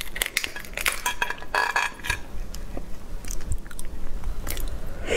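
Shell of a raw langoustine head being pulled apart by hand close to the microphone: a run of small cracks and wet clicks with a few short squishy tearing sounds.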